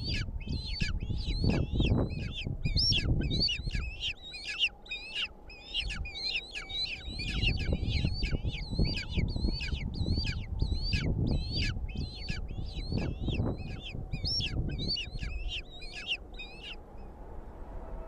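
Steppe eagles calling at the nest: a long run of short, high, thin calls, about three a second, stopping about a second before the end, over a low rumble.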